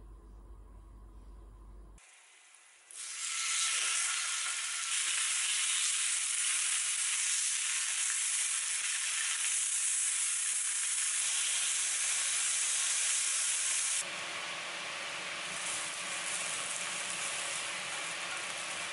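Wagyu beef slices and garlic cloves sizzling in a hot frying pan, a loud steady sizzle starting about three seconds in. About three-quarters of the way through it changes to a somewhat quieter sizzle as asparagus spears fry in the same pan.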